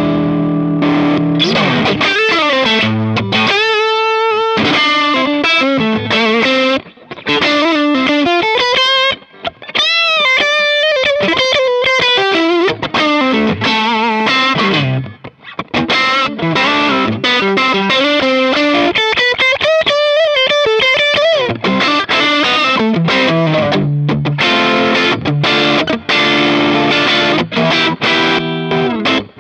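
Telecaster-style electric guitar played through a VS Audio Royal Flush dual overdrive pedal, overdriven. Strummed chords open and close the passage, with single-note lead lines and bent, wavering notes in the middle.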